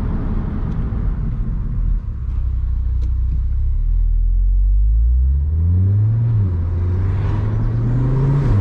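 Car engine with a low rumble; from about halfway its note climbs as it accelerates, drops back at a gear change, and climbs again.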